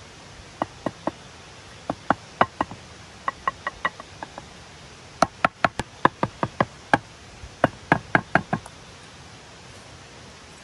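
A hatchet knocking on split green wooden poles of a bench top, a series of sharp wooden knocks in quick groups of three to six, driving the poles tight against one another.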